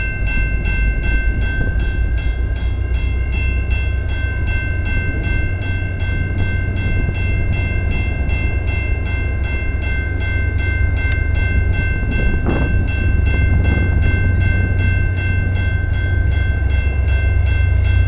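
Level-crossing warning bell ringing in rapid, even strokes over a low rumble that grows louder toward the end as the train approaches.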